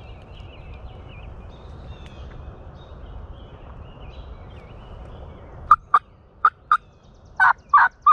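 Wild turkey yelping: about seven short, sharp yelps begin near the end, first in pairs and then in a quicker run, loud and close. Before them, faint songbird chirps over a low, steady background.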